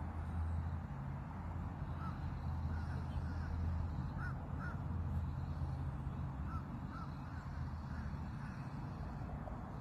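Birds calling in the background, short chirps coming singly and in pairs several times, over a steady low hum.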